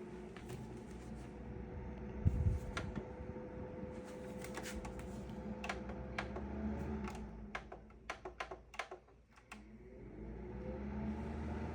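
Light plastic clicks and taps from a humidifier's parts being handled, with a louder knock about two seconds in and a quick run of clicks around eight seconds in, over a steady low hum.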